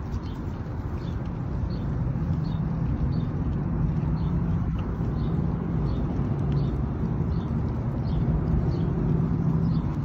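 Low steady rumble of a running motor, firming up about two seconds in, with faint high ticks repeating a little under a second apart.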